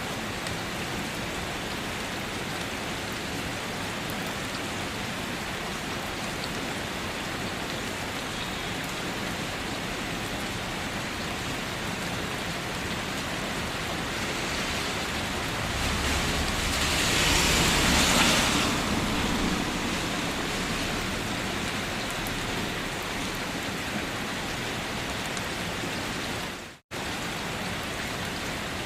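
Steady rain falling, a dense even hiss. It swells louder for a few seconds past the middle, then settles back. Near the end it cuts out to silence for an instant and resumes.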